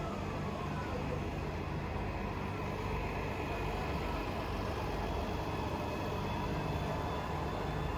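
Bus engine running steadily nearby, a low, even drone.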